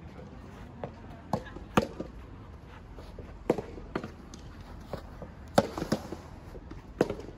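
Soft tennis rally: the soft rubber ball struck by rackets and bouncing on the court, a string of about eight sharp pops at uneven spacing, with a few footsteps between them.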